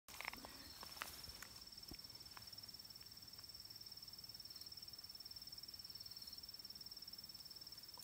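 Faint, steady high trill of an insect, a continuous finely pulsing buzz, with a few soft clicks in the first two seconds.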